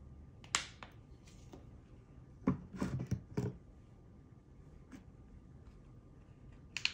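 A few scattered light clicks and taps: a single one about half a second in, a quick cluster of several about two and a half to three and a half seconds in, and another short burst at the very end.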